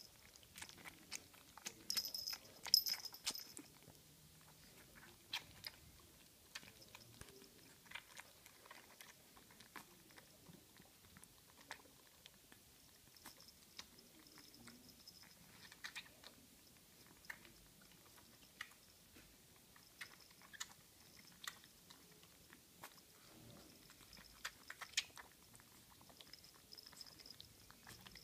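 Puppy suckling milk from a feeding bottle: a steady run of small, irregular wet clicks and smacks at the nipple. A small bell on its collar tinkles now and then, loudest about two to three seconds in.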